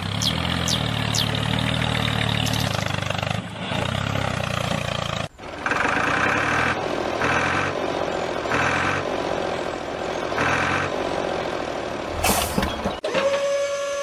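A diesel tractor engine running steadily. About five seconds in, a reversing beeper starts sounding over it roughly once a second. Near the end there is a short hiss and a click.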